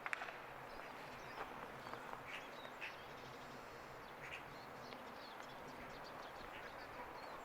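Faint steady outdoor background noise with short, high, irregularly spaced chirps or ticks scattered through it.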